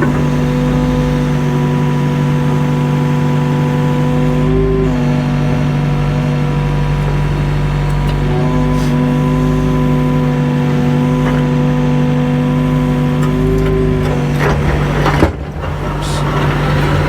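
Mini excavator's diesel engine running steadily under load, with a hydraulic whine that changes pitch as the arm and bucket move. About fifteen seconds in there is a sharp knock, after which the engine sound briefly drops.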